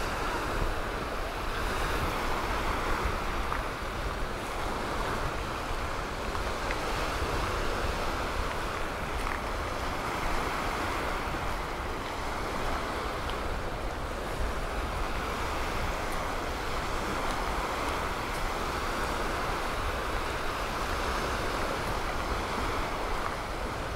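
Gulf of Mexico waves washing onto a sandy beach, a steady rush of surf that gently swells and eases, with wind rumbling on the microphone.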